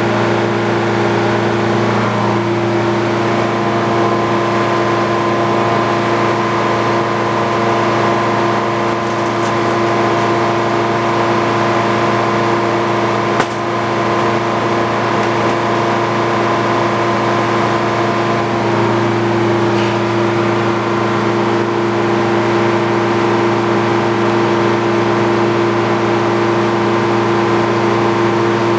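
Circular sawmill running steadily, its large blade spinning free with no board in the cut, over the steady hum of the engine that drives it, with several held tones. One sharp click about halfway through.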